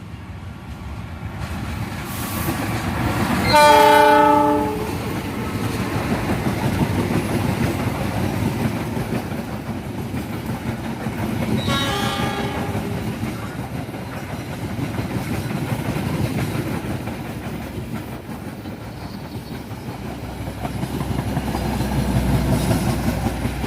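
CC 206 diesel-electric locomotive horn sounding a loud chord blast of about a second roughly four seconds in, then a shorter, fainter blast around twelve seconds. Under both runs the steady rumble and wheel clatter of the passing train, which swells again near the end.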